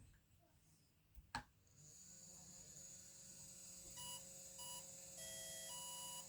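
A sharp click, then a steady high whine and a run of four short electronic beeps at different pitches: an RC car's electronic speed controller sounding its power-up tones after the battery is connected.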